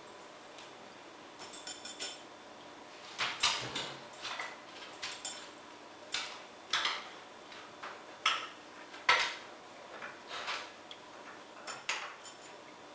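A beagle's claws clicking and scrabbling on a wooden dining table as it climbs up and walks about, with small things on the tabletop clattering. The clicks come in irregular bunches, a few of them sharp and loud.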